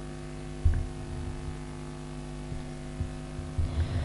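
Steady electrical mains hum with its overtones, with uneven low thumps and rumbles coming in from about a second in.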